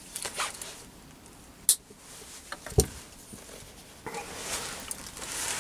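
A nylon zip tie being threaded through a hole in a steel taper drift and pulled tight: a sharp click, then a louder knock, and a rasping run of fine clicks in the last second and a half as the tie is fastened.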